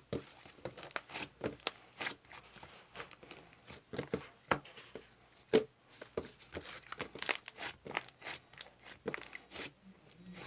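Slime being squeezed, stretched and folded by hand, giving many irregular sticky pops and crackles.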